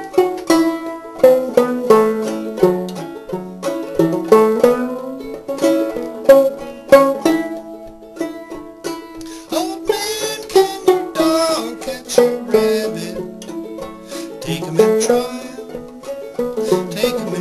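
Banjo played clawhammer style, picking out a simple song melody in a steady run of plucked notes.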